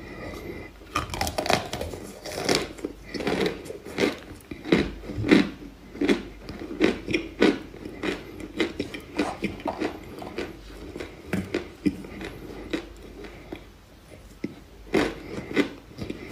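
Crisp crunching as chunks of dry, chalky white clay are bitten and chewed, a quick irregular run of brittle crunches that eases off briefly and picks up again near the end.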